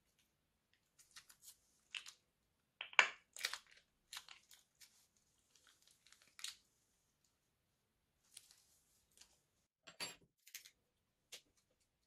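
Slime being squeezed out of a plastic piping bag, with irregular soft crackles and squishes in two clusters. The loudest crackle comes about three seconds in.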